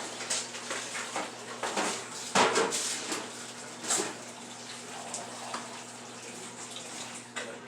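Kitchen clatter of dishes and utensils knocking and scraping while food is prepared, with a sharp knock about two and a half seconds in and another about four seconds in. A steady low hum runs underneath.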